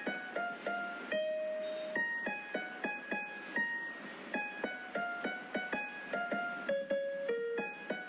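Background piano music: a melody of single notes, played at a steady pace.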